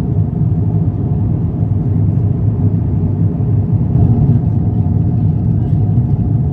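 Steady cabin noise inside an Airbus A350-900 airliner in flight: a constant low rumble of engines and airflow, with a faint steady hum above it.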